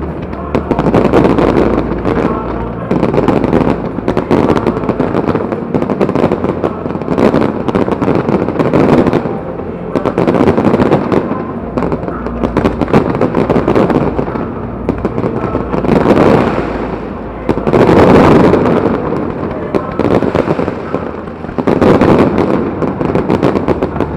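Aerial fireworks display: a dense, continuous barrage of cracks and bangs from many shells bursting at once. It swells louder twice in the second half.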